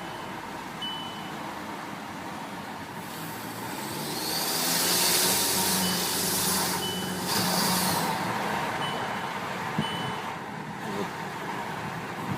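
Turbocharged engine of an APR Stage 2 tuned Volkswagen Tiguan running, with a loud turbo hiss and whistle swelling for about four seconds from roughly four seconds in as the engine pulls harder. The owner finds the whistle very strong, new and unexplained. A few short high beeps sound at intervals.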